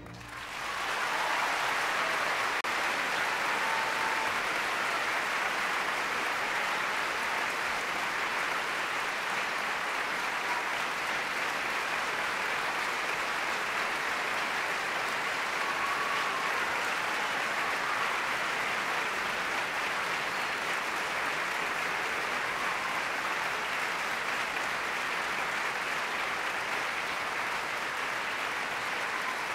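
Theatre audience applauding a ballet soloist's bow. The applause builds in the first second and then keeps up steadily.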